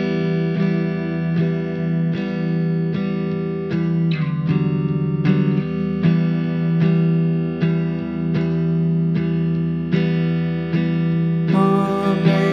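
Background music: a guitar, played through effects, picks a slow, even run of sustained notes. The sound grows fuller near the end.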